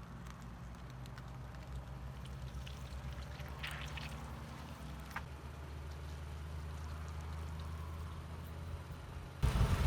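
A car engine's low, steady hum with scattered small crackles and a trickle of liquid, as of crushed drinks or balloons leaking. The sound gets suddenly louder just before the end.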